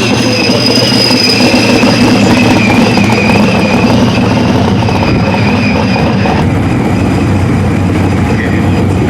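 Supercharged big-block V8 drag-car engine idling loudly and steadily, with a steady high-pitched whine over the engine note that fades about six and a half seconds in.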